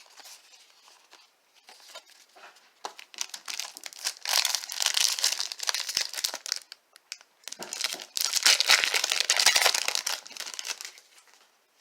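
A baseball card pack's wrapper being torn open and crumpled: faint rustling, then two long stretches of crinkling, the second the longer.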